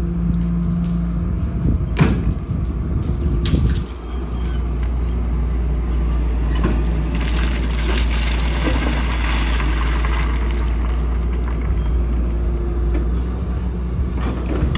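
Hyundai 245LR long-reach excavator's diesel engine running steadily while it digs, with a sharp knock about two seconds in and a gritty hiss for a few seconds in the middle.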